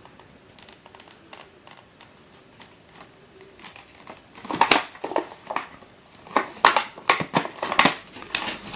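Clear plastic blister pack crinkling and clicking as it is handled and opened by hand. The sound turns louder and busier about halfway through, with a paper insert rustling near the end.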